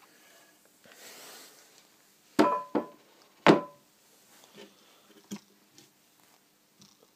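A small metal straightedge being handled and set down on a machine casting: a brief scraping slide, then two sharp metallic clanks about a second apart, each with a short ring, followed by a few light knocks.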